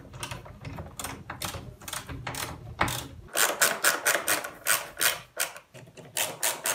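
Ratchet screwdriver clicking in quick runs of strokes as screws are driven into a dishwasher's base, the clicks coming thicker and louder in the second half.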